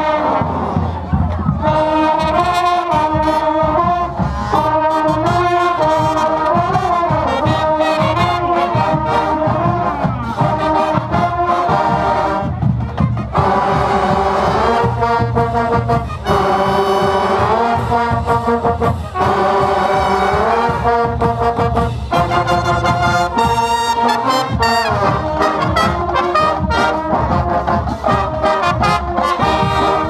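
College marching band brass (trumpets, trombones and mellophones) playing a lively, loud tune together, with drums keeping a steady beat underneath.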